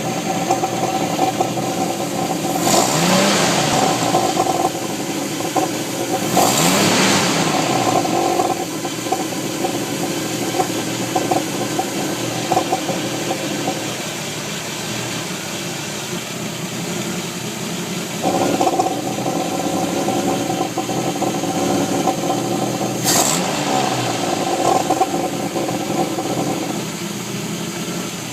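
1989 Jeep Wrangler YJ's 4.2-litre (258) inline-six running, revved up and back down twice in the first several seconds, with popping from the pulse air system. The uploader puts the popping down to what seems to be improper ignition timing and a fuel delivery problem.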